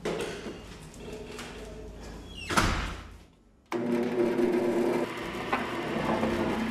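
A door opening and then shutting with a bang about two and a half seconds in. About a second later a bandsaw motor starts abruptly and runs with a steady hum.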